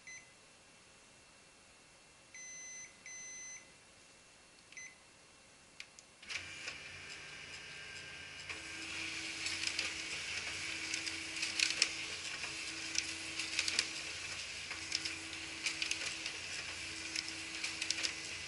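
Ricoh Aficio MP301SPF copier: a few short beeps in the first five seconds, then the machine starts up about six seconds in and runs with a steady hum, growing louder about two seconds later, with many sharp clicks over it.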